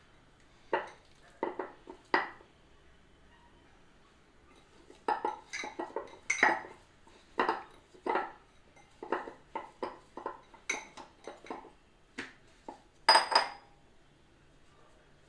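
Kitchen bowl and utensils clattering as bread dough is taken out of its bowl: a string of short knocks and clinks, with a quiet stretch about two seconds in and a loud pair of knocks near the end.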